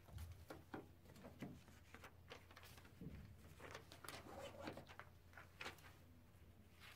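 Faint rustling and light taps of paper and cardstock sheets being handled and set down on a table, over a low steady hum.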